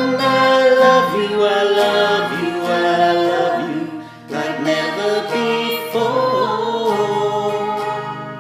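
Slow ballad sung to acoustic guitar, with a brief break in the singing about four seconds in.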